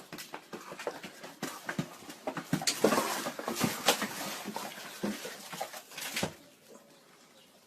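A rapid, irregular run of clattering knocks and scrapes that builds up and cuts off suddenly after about six seconds.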